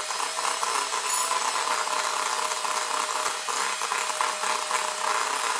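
Electric hand mixer running at a steady speed, its beaters whisking creamed butter, sugar and egg in a glass bowl.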